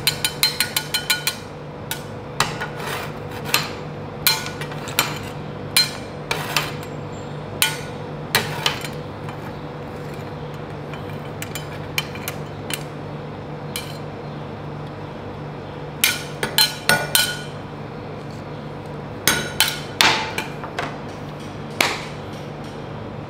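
Steel spatulas clinking and tapping on a metal rolled-ice-cream cold plate. A fast run of taps comes in the first second, then single knocks every second or so, with busier runs about two-thirds of the way through and again near the end. A steady low hum lies underneath.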